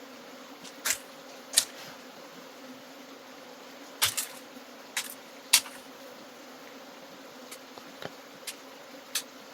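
Bees buzzing in a steady hum, with about seven sharp knocks or taps at irregular moments over it.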